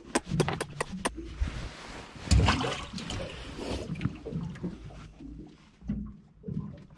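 A quick run of clicks and knocks, then a few seconds of water splashing and sloshing, loudest about two seconds in, fading out after about four seconds.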